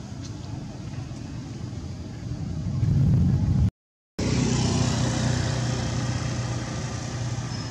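Steady low outdoor rumble that swells about three seconds in, cuts out briefly, then carries on steadily with a faint low hum.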